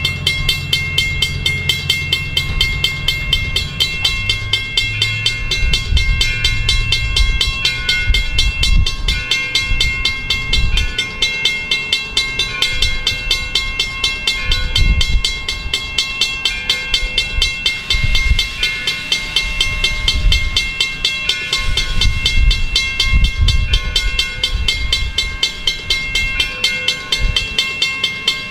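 Railroad grade-crossing bell ringing with fast, even strokes while a passenger train rolls over the track, its wheels making an uneven low rumble with knocks.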